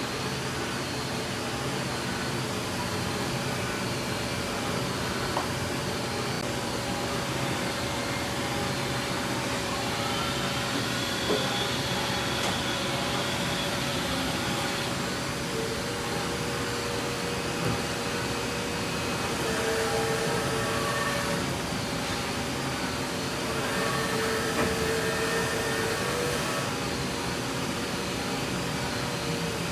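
Fadal VMC 6030 HT CNC vertical machining center running under power: a steady mechanical hum with several whining tones that change in pitch and come and go as its motors run.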